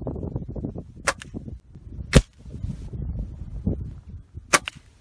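Three shots from a Gamo .177 break-barrel spring-piston air rifle, about a second and then two seconds apart, the middle one the loudest, each a sharp crack.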